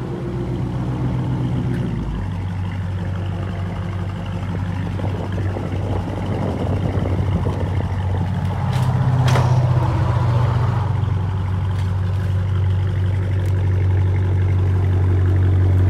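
Dodge Charger R/T's 5.7-litre HEMI V8 running through a fresh muffler delete, straight-piped at idle. The idle drops in pitch about two seconds in and rises briefly near the middle.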